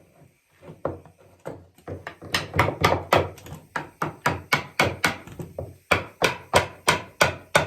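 Hammer blows on wood, lighter and uneven at first, then a steady beat of about three blows a second, with a short pause near the end.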